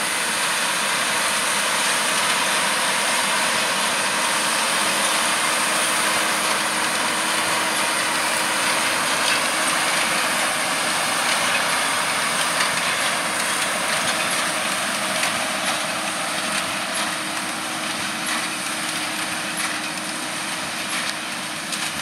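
JCB Fastrac 4220 tractor and Krone BiGPack 1290 HDP large square baler running steadily together while baling straw, a constant mechanical din with a steady low hum through it. It grows a little quieter in the second half.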